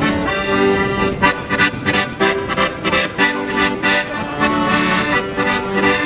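Accordion music: a melody over held chords that change every second or so.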